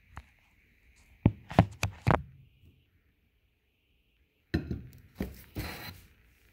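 Hard objects knocked against a kitchen counter: four sharp knocks close together about a second in, then a short gap and a stretch of rubbing and clattering handling noise.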